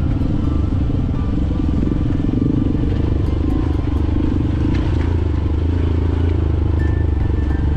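Dirt bike engine running steadily under way, a deep, even drone.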